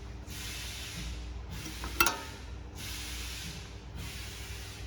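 Compressed air hissing from a can filling line in repeated blasts, about one a second, over a steady low machine hum. A sharp clack comes about two seconds in.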